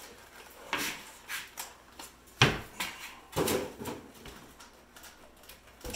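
Several knocks and clunks from handling a large lithium battery pack and its metal heat-sink panels, the loudest about two and a half seconds in.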